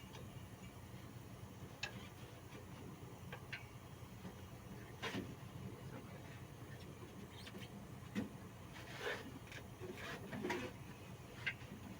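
Faint scattered clicks and light taps over a low steady hum, the clearest a few seconds apart in the second half.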